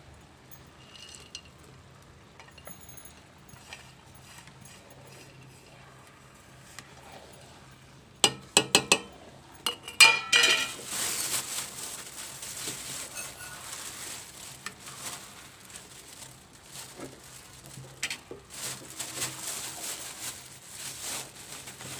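A metal spatula clanks sharply against a kadhai several times about eight seconds in. Then comes continuous stirring and scraping of carrot halwa with sugar, with sizzling and small knocks of the spatula on the pan.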